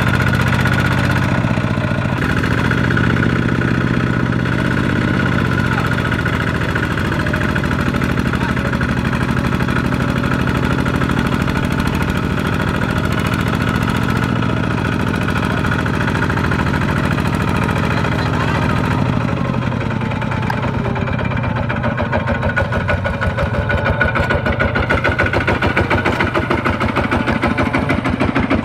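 Two-wheel walking tractor's single-cylinder diesel engine running hard under load, its revs rising and falling as it drags a loaded trailer through deep mud. About two-thirds of the way in it settles into an even, pulsing chug.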